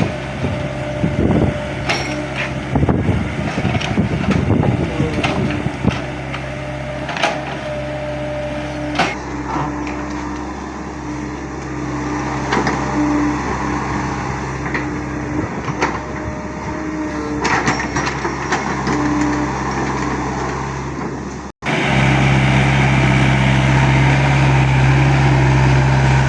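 Excavator engine running steadily, with a wavering whine over it and scattered knocks in the first few seconds. About three quarters through, the sound cuts out for an instant and comes back with the engine louder.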